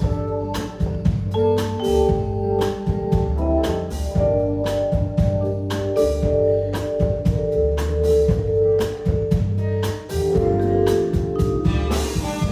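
Ethio-jazz-style instrumental band music: a steady drum beat, held melody notes and a bass line.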